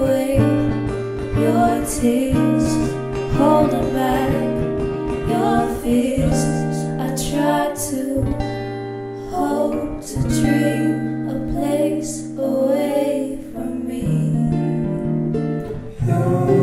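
A folk song played live: acoustic guitar with singing over sustained low notes that change every couple of seconds.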